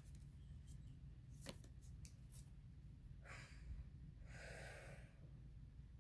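Two breaths blown out through pursed lips, the second longer, over a low hum, with a faint click about a second and a half in.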